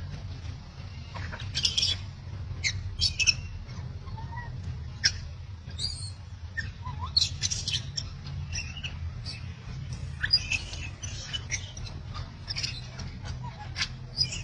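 Many short high-pitched animal squeaks and chirps at irregular intervals, over a low steady hum.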